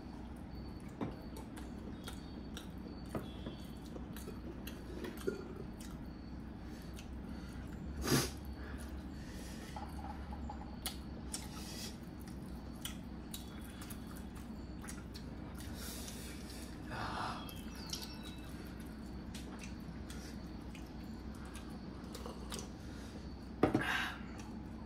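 People quietly chewing chicken momos, with scattered small mouth clicks and three short louder mouth noises over a low steady hum.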